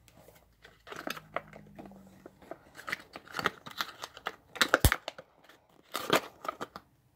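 Cardboard retail box being opened by hand: the flaps and packaging scrape, crinkle and click in irregular bursts, with one sharp click a little under five seconds in.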